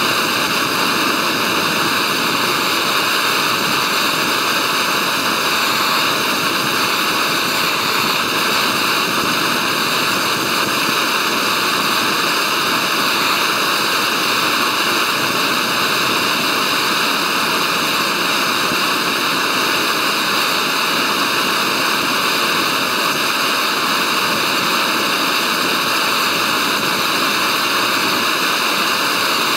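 Small canister gas stove burning under a metal camping mug: a steady, unbroken hiss of the burner flame with no change in level.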